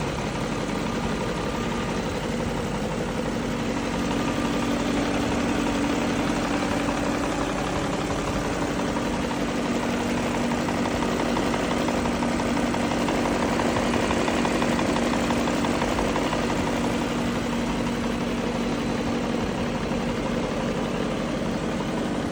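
BMW E38 740i's V8 idling steadily, heard close up at the open engine bay.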